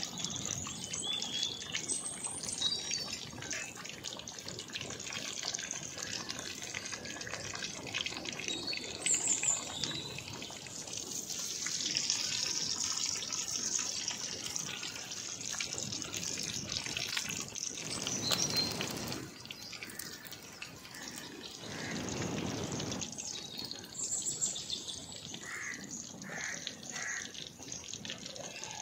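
Masala-coated whole goat head deep-frying in hot oil in an iron kadai: a steady sizzle thick with small crackles and pops.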